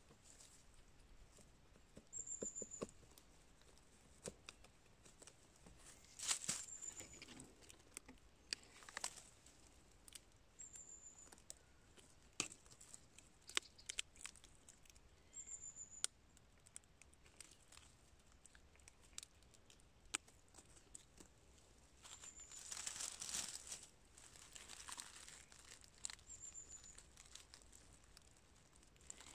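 Gloved hands digging and pulling at dry pine needles, leaf litter and crumbly bark around a reishi fungus: faint rustling and crackling with many small snaps and clicks, louder rustling about six seconds in and again around twenty-three seconds.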